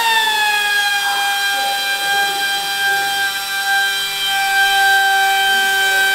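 Pneumatic die grinder running with a steady high whine as it shaves down the end of a titanium dipstick so it fits. The pitch dips slightly in the first second, then holds.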